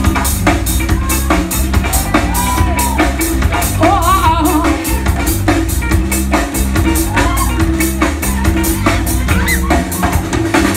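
Live band playing a song over a steady drum-kit beat and bass, with a woman singing.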